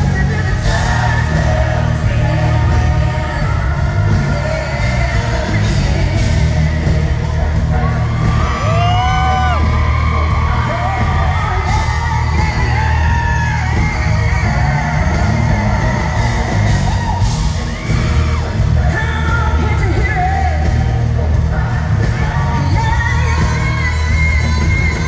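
Live country-rock band playing with a woman singing lead, loud and heard through a phone's microphone in an arena. Audience members yell and whoop over the music, most plainly about a third of the way in.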